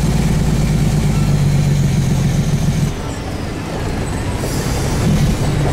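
Truck engine running under load, heard from inside the cab on a rough gravel road. The steady low engine note drops away and softens about three seconds in, then builds again near the end.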